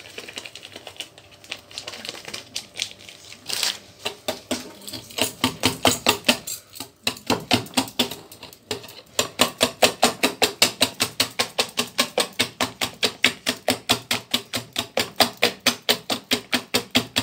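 Wire balloon whisk beating an egg, sugar and oil cake batter in a glass bowl, the wires clicking against the glass in a fast, even rhythm of several strokes a second. The strokes are softer and less regular for the first few seconds.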